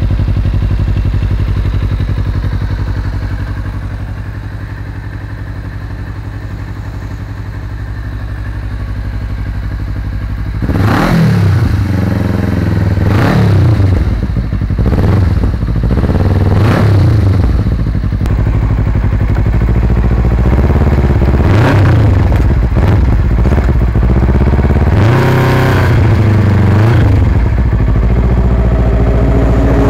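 Kawasaki Ninja 250 FI parallel-twin engine idling through a Yoshimura carbon-fibre slip-on exhaust. About ten seconds in it is revved in about eight quick throttle blips, each rising and dropping back toward idle.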